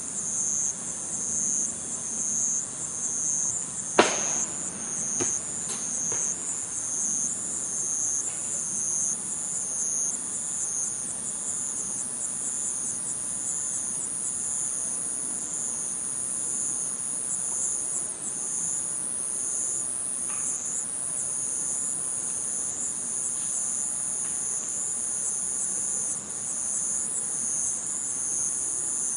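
A dense chorus of crickets trilling in a steady pulsing rhythm. About four seconds in comes a sharp, loud knock, followed by two fainter knocks within the next two seconds and a couple of faint taps much later: an unexplained sudden noise close by.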